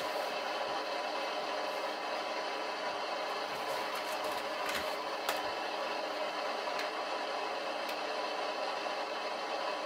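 Steady electronic static hiss, the white-noise background of an EVP session, with faint steady tones in it. A few light clicks, the sharpest about five seconds in.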